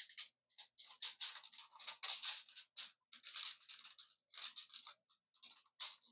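Aluminium foil crinkling in irregular short bursts with brief pauses between them, as it is pressed and shaped by hand around a paintbrush.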